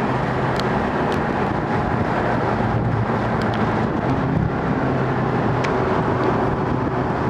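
Ferrari California's 4.3-litre V8 running at a steady cruise, heard from inside the cabin, its hum holding an even pitch over road noise.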